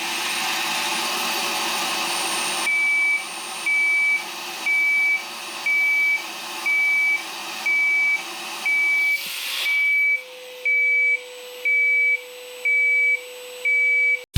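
Bosch GAS 18V-12 MC cordless vacuum cleaner running, and after a few seconds its piezo beeper starts a high, even beep about once a second: the alarm for reduced airflow through the vacuum. About ten seconds in the motor note drops a little and the running noise gets quieter.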